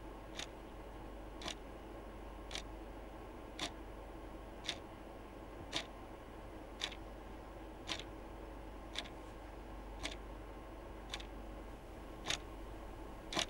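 Wall clock ticking slowly and evenly, a little less than once a second, over a faint steady hum.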